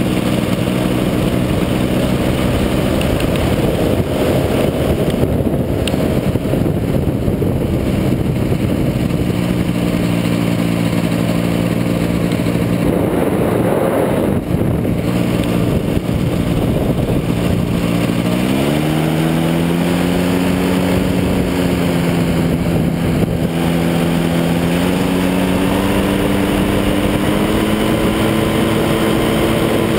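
Powered parachute engine and propeller running steadily in flight, with wind rushing over the microphone. A little past halfway the throttle opens and the engine pitch rises, then it steps up slightly twice more near the end.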